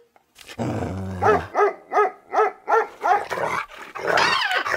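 Cartoon creature sounds: a short low growl, then a run of short yapping cries, about two or three a second, then quick, high-pitched squeaky chatter near the end.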